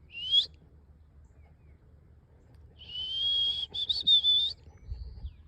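A person whistling to call a dog: a short rising whistle, then a longer, slightly wavering whistle of nearly two seconds.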